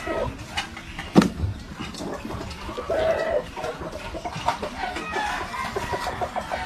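Chickens clucking, with one sharp knock about a second in as a large knife chops through a fish onto a wooden board.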